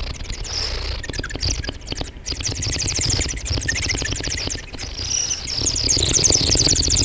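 ASMR mouth sounds made close to a sensitive microphone: a fast, continuous run of wet clicks and smacks, many per second.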